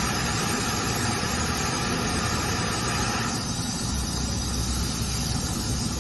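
Laser drilling machine running: a steady mechanical hum with a hiss over it. About three seconds in, the hiss drops and the low hum grows stronger.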